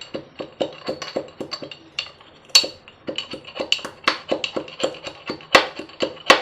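Pestle pounding cloves and black peppercorns in a mortar: quick, regular knocks at about three to four strokes a second, each ringing briefly, grinding the spices fine.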